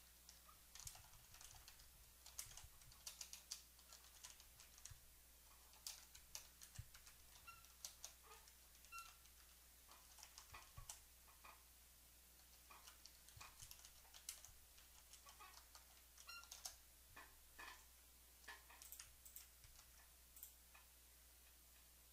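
Faint computer keyboard typing: quick runs of keystrokes in irregular bursts with short pauses between them.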